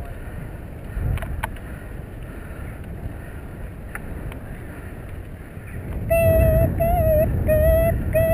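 Wind buffeting the microphone of a moving bicycle, with a few light clicks. About six seconds in, a loud, high, slightly wavering tone joins in, held in short stretches with brief breaks.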